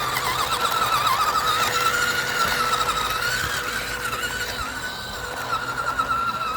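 Toy RC car's electric motor and gears whining, the pitch wobbling up and down as the throttle is worked, easing off a little about five seconds in.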